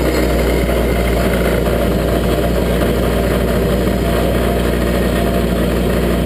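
Brobo cold saw, a metal-cutting circular saw, running steadily with a strong low motor hum while cutting a bright mild steel bar to length.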